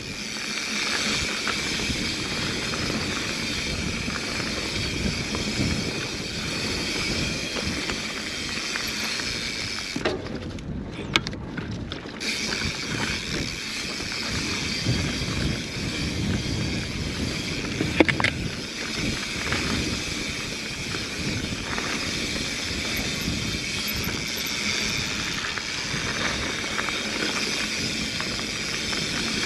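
Mountain bike riding a dirt singletrack: a steady rush of tyres on dirt and wind on the microphone, with scattered knocks from the bike. The high hiss briefly drops out about ten seconds in, and a single sharp clack comes about eighteen seconds in.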